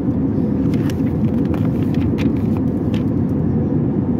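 Steady cabin noise of an Airbus A320 in flight, a loud even rumble, with a few short crinkles as the pages of a paper in-flight menu are turned.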